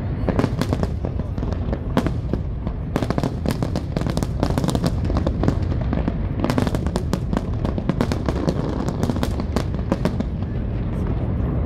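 Fireworks display: rapid volleys of sharp cracks and pops over a continuous low rumble of shell bursts. The crackling comes in waves, densest from about six to nine seconds in.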